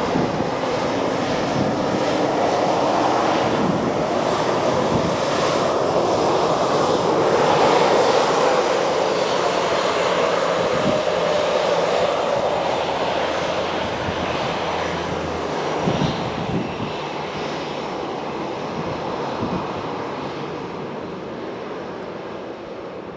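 Jet engines of a Ryanair Boeing 737 running at taxi power as it rolls along the runway, growing louder as it passes and then fading as it moves away, with a whine that falls in pitch as it goes by.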